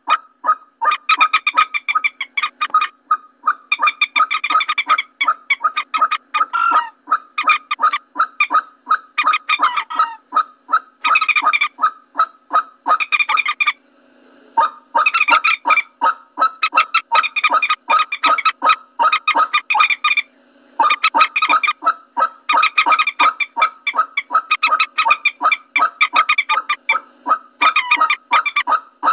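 Common moorhen lure-call recording: long runs of short, repeated calls, about four a second, broken by two brief pauses about halfway and two-thirds of the way through. The calls are played to draw moorhens in.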